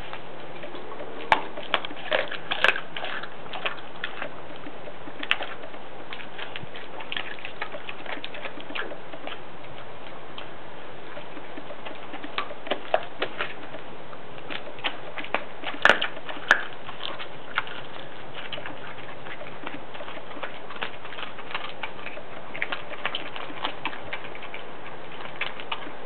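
A dog chewing and crunching a raw flatfish: irregular sharp crunches and clicks, bunched about one to three seconds in and again around the middle, over a steady hiss.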